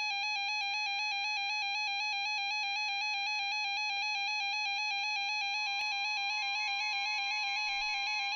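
Electronic weather-alert tone: a steady square-wave beep rapidly warbling between two pitches, marking an incoming warning alert on NOAA Weather Radio. The steady single-pitch warning alarm tone comes in faintly about five and a half seconds in.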